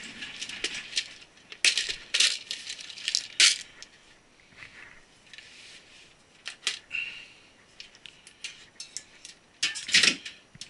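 Small metal screws and parts clinking and rattling as they are rummaged through by hand, in scattered sharp clicks, with a louder clatter near the end.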